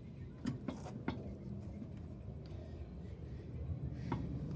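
A few light clicks and knocks of hand tools being handled, about half a second, a second and four seconds in, over a low steady rumble.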